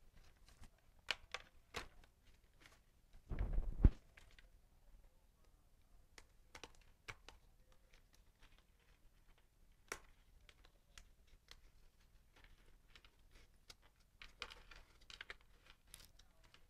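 Quiet hand-work with a strip of heavy-duty Velcro being cut and pressed onto a hard plastic climbing helmet: scattered light clicks, one louder thump about three and a half seconds in, and a short rustle near the end.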